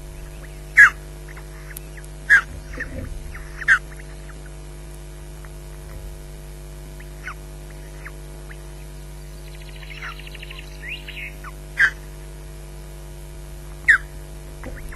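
Osprey on the nest calling: about five loud, sharp whistled notes, each sliding quickly downward, with fainter notes and a brief run of rapid chittering between them. A steady electrical hum runs underneath.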